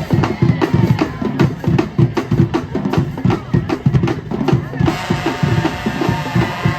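High school marching band drumline playing a fast rhythmic pattern on bass drums and snares; about five seconds in, the horns come in together with a held chord over the drums.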